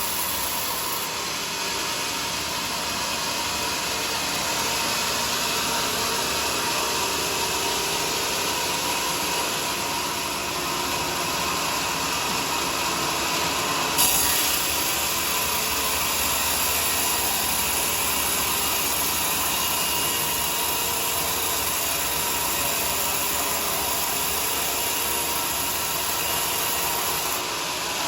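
Bandsaw sawmill running steadily through a teak log, with one sharp knock about halfway through.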